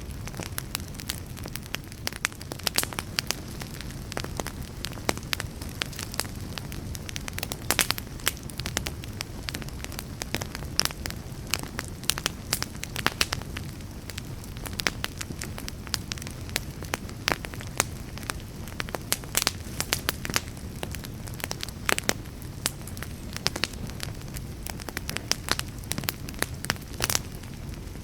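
Wood fire burning, with a steady low rumble under frequent sharp crackles and pops at irregular intervals.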